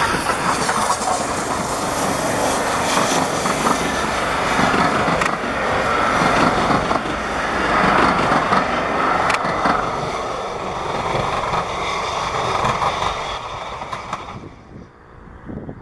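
Steam-hauled passenger train of a BR Standard Class 4MT 2-6-0 passing close by, its coaches rolling over the rails with a continuous rumble and occasional sharp clicks. The sound fades as the train draws away and drops off sharply near the end.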